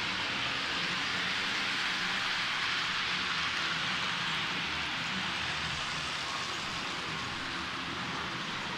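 H0-scale model train running along the layout track: a steady hiss of wheels and motor with a low hum underneath.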